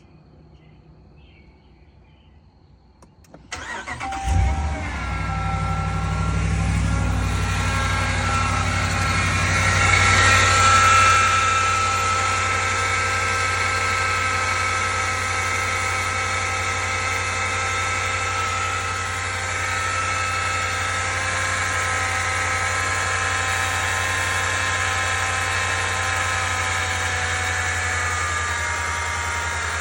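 2020 Ram 1500 engine starting about four seconds in, then idling with a steady high-pitched whine over the engine sound. The owner attributes the whine to the motor generator unit (MGU).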